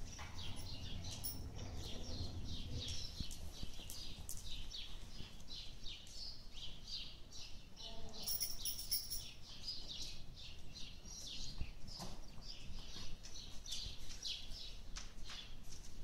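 Many small birds chirping and twittering continuously, a quick stream of short high chirps.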